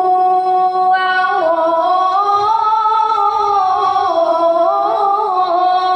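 A high voice chanting Quranic recitation (tilawah), holding one long ornamented phrase that slowly rises and falls in pitch.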